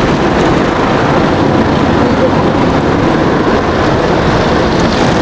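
Soft-touch automatic car wash running over the car: a steady rush of water spray and wash machinery, heard from inside the car's cabin.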